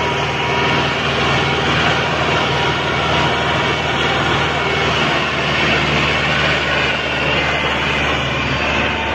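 Massey Ferguson 385 tractor's diesel engine running steadily and loud, working with a loaded trolley.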